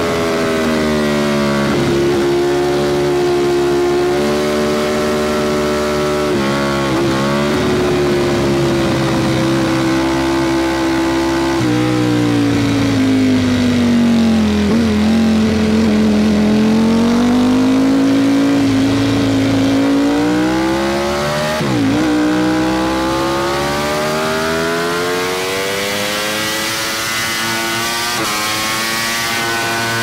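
Ducati Panigale V4 SP2's V4 engine through an Akrapovic slip-on exhaust, under way. The note holds a fairly steady pitch with a few brief sharp dips, sags slowly through the middle, then climbs steadily near the end.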